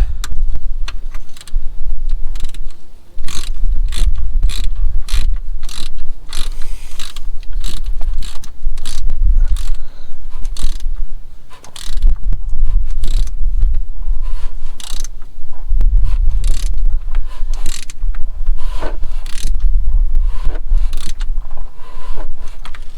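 Socket ratchet clicking in short runs as a gearbox plug is done up into the cast gearbox casing, over a low rumble of wind on the microphone.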